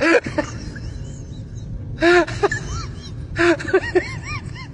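Dog whining in two groups of short rising-and-falling whimpers, about two seconds in and again near the end, after a brief noise at the very start.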